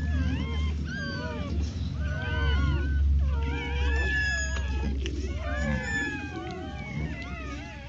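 A litter of bully-breed puppies squealing and whining, many high cries overlapping and sliding up and down in pitch, over a steady low hum.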